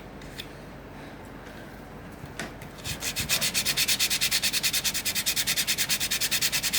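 A few light taps, then from about three seconds in fast, even back-and-forth abrasive strokes on a piece of acacia wood, about ten a second: hand sanding or filing that refines the shape of a comb blank before its teeth are cut.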